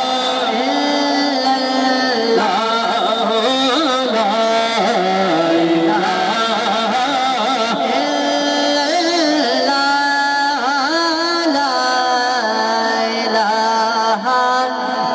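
Devotional music: a man sings long, wavering, melodic held notes into a microphone with no clear words.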